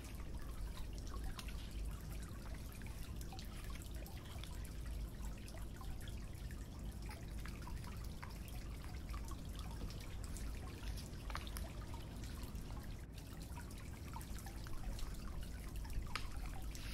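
Glue being brushed onto card and the card pressed down onto paper by hand: small sticky clicks, taps and paper rustling over a low steady hum.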